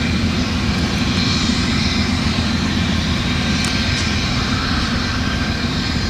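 Two GE Genesis diesel-electric locomotives hauling a passenger train, their engines making a steady drone as they run.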